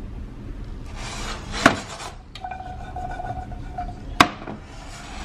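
Cookware knocking on a glass-top stove: two sharp clacks about two and a half seconds apart, the second the louder. A brief hiss comes just before the first, and a faint steady whine sits between them.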